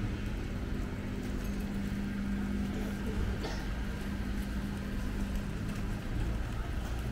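Town street ambience: a steady low hum over a low rumble, with a few faint clicks.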